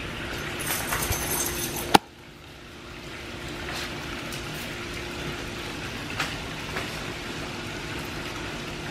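Steady splash and trickle of water spilling into a backyard swimming pool, with a single sharp click about two seconds in.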